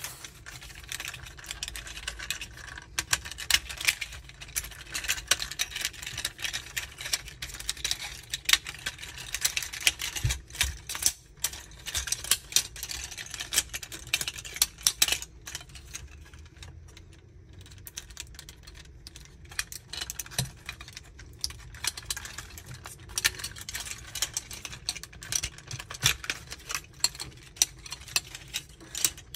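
Plastic parts of a Magic Square MS-02 Light of Peace transforming robot figure clicking, snapping and rattling as hands fold its panels and joints, a dense run of sharp clicks that thins out for a few seconds just past the middle.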